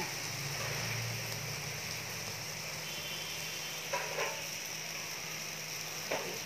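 Steady hiss of a gas stove burner flame with a light sizzle as a marinated paneer tikka skewer roasts directly over it, a low hum underneath. A couple of brief clicks come about four seconds in and again near the end.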